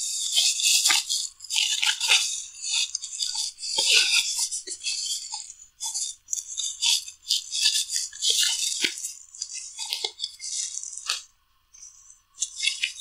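Plastic packaging bag crinkling and rustling in irregular bursts as a headset cable is unwrapped from it, with a short lull near the end.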